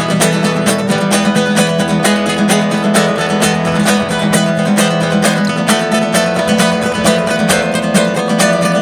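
Background music: an acoustic guitar played with rapid, even strumming over sustained chords, with no break.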